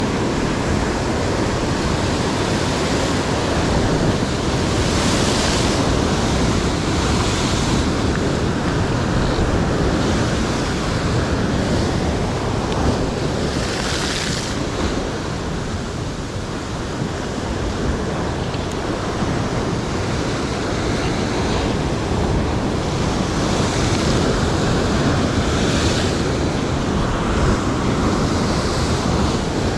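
Ocean surf breaking and washing against sea rocks, a steady rushing noise with several louder hissing surges of spray.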